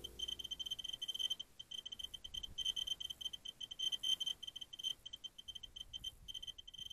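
Faint high-pitched electronic tone, stuttering on and off irregularly.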